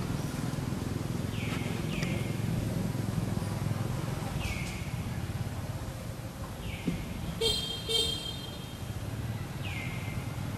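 Steady low rumble like road traffic, with a short horn-like toot about seven and a half seconds in. Short high calls that drop sharply in pitch recur every couple of seconds.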